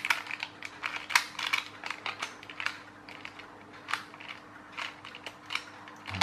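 Irregular plastic clicking and rattling from the clockwork toy tractor's plastic gear train as its wheels and gears are turned by hand.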